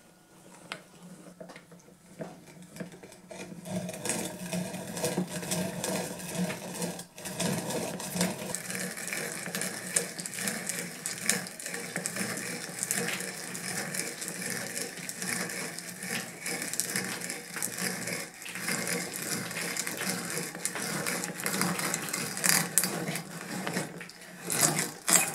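Auger bit turned by a hand bit brace boring into red oak: a dense, crackly rasping of the bit's cutters shearing wood and lifting chips. It starts faintly, builds to a steady level about four seconds in, and has a few sharper cracks near the end.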